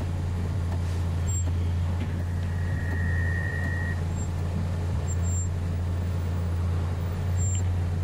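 Range Rover Sport running at low speed under All-Terrain Progress Control on deep sand, heard from inside the cabin as a steady low drone. A steady high tone sounds for about a second and a half near the middle.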